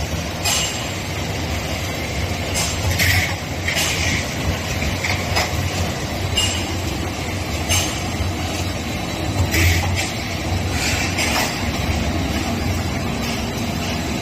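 Two-in-one roll forming machine for drywall metal profiles running: a steady low machine hum with irregular sharp metallic clanks and clicks.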